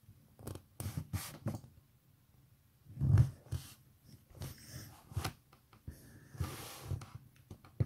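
Scattered short rustles and knocks close to the microphone as the camera is handled and set in place, then small movement and breathing noises; the loudest knock comes about three seconds in.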